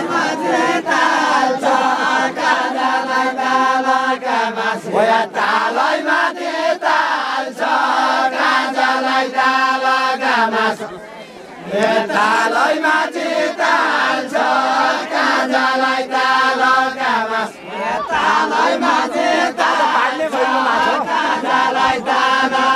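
A group of voices singing a Deuda, the Far-Western Nepali folk song of the linked-arm dance, in long drawn-out chanted lines. The singing breaks off briefly about 11 seconds in and again near 18 seconds.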